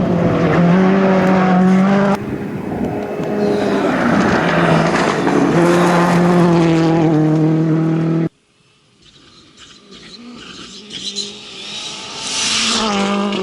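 Rally cars at full throttle, the engine note climbing and dropping through gear changes, with abrupt cuts between passes. About eight seconds in the sound falls away to quiet. Then another car approaches, its engine and tyre noise growing louder toward the end.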